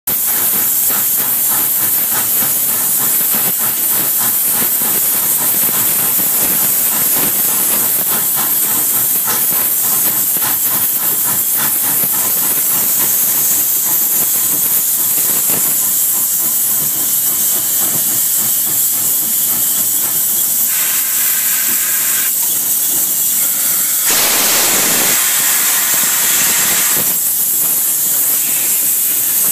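Steam locomotive PRR 643 heard from inside its cab while running: a loud, steady hiss of steam, with a rhythmic beat through the first dozen seconds. A louder rush of steam sounds for about three seconds near the end.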